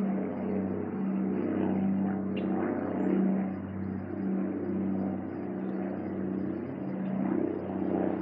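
A machine running steadily with a low, even hum whose loudness swells and fades a little.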